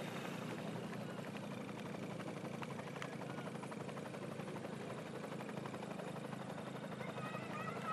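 Steady drone of motor vehicle engines, the race convoy's motorbikes and cars, with a low hum and no distinct events.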